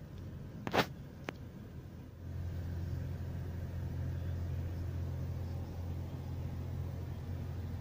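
A sharp click just under a second in, then from about two seconds in a steady low rumble of a car heard from inside its cabin as it creeps along in slow traffic.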